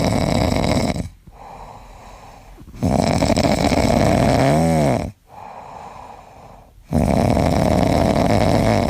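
Loud snoring: three long snores of about two seconds each, with quieter breathing between them. The middle snore has a wavering pitched whistle in it.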